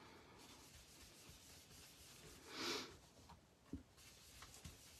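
Faint rubbing of an ink blending brush on card stock, with one brief louder swish about two and a half seconds in and a couple of light taps later.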